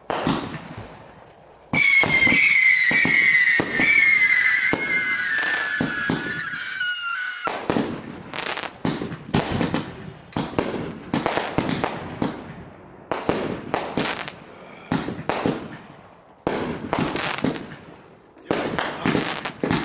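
Consumer aerial fireworks going off. A loud whistle falls slowly in pitch for about six seconds, and then a dense run of pops and crackling bursts follows.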